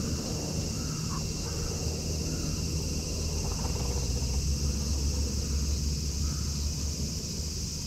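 Outdoor ambience: a steady low rumble under a steady high hiss, with a few faint short bird chirps about a second in and again near the end.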